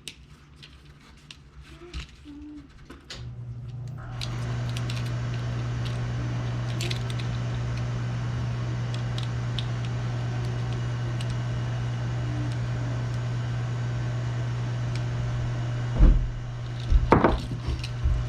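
A steady machine hum with an even hiss comes on about three seconds in and holds level. A few light clicks come before it, and a few heavy knocks near the end.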